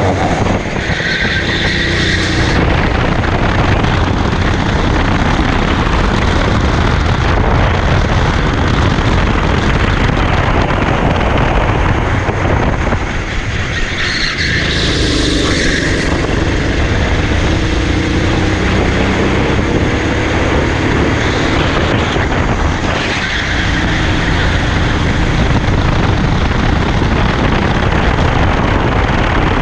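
Racing kart engine running hard under the onboard camera. The engine note drops briefly a couple of times as the kart slows for corners, then climbs again as it accelerates out.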